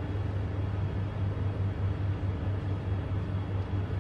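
Room tone: a steady low hum with a faint hiss.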